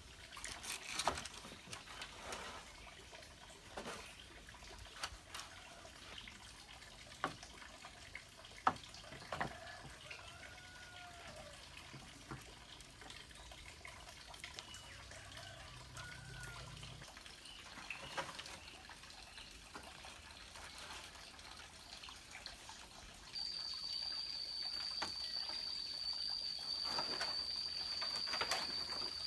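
Bamboo poles knocking and clattering now and then as they are handled and laid across a frame, over a steady outdoor hiss. Near the end a steady high-pitched whine sets in.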